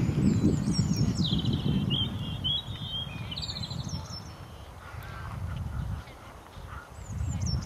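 A small songbird sings a fast phrase that falls in pitch and then runs into a string of quick repeated notes lasting about three seconds. A shorter phrase comes near the end. Under it is a low, uneven rumble from the horse trotting on the sand arena.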